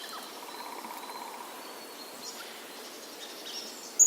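Forest bird ambience in spring: a soft, even trill in the first couple of seconds and scattered faint chirps over a steady outdoor hiss, then a loud bird call right at the end.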